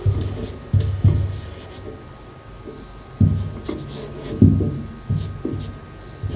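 Marker pen writing on a paper chart pinned to a board: a string of irregular soft knocks and faint scratchy strokes as the pen is pressed and lifted. A faint steady hum runs underneath.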